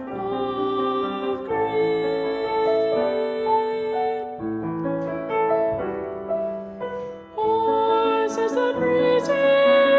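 Boy treble singing a slow 20th-century classical song with piano accompaniment, mostly on long held notes.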